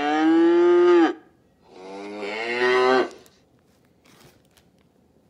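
A recorded cow mooing twice, played back through a Google Nest Hub smart display's speaker: two long moos, the second swelling louder before stopping about three seconds in.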